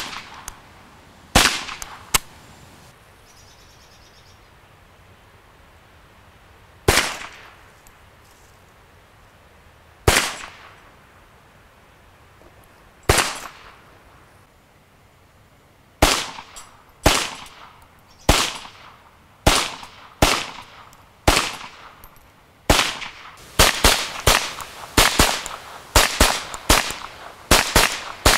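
Ruger Charger .22LR semi-automatic pistol firing single shots, each a sharp crack with a short echo trailing off. About twenty shots: several seconds apart at first, then coming faster, about two a second over the last few seconds.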